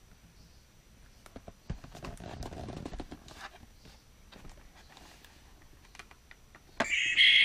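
Small clicks and rustles of hands handling the plastic toy packaging, then near the end a loud electronic dinosaur roar starts from the toy T. rex's small speaker, set off by its try-me button; the roar sounds like Godzilla.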